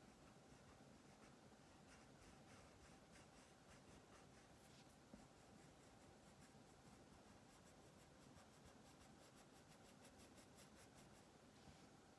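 Faint scratching of a Crayola wax crayon shading back and forth on paper, a steady run of quick short strokes.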